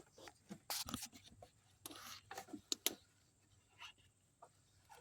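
Faint handling sounds at a turn signal bulb socket: scattered sharp plastic clicks and brief rustles as a hand works at the socket and its connector.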